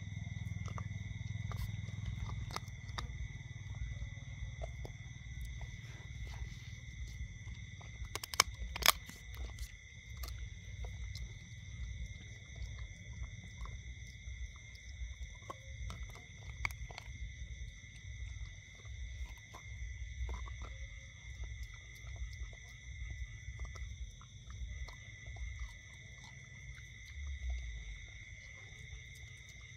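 A dog gnawing and crunching a bone: irregular clicks and cracks throughout, the two loudest about eight and a half seconds in, over a low rumble and a steady high-pitched ringing.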